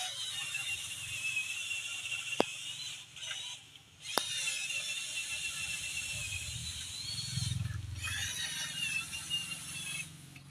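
High-pitched whine of a small electric toy motor, cutting out and starting again a few times, with two sharp clicks about two and a half and four seconds in.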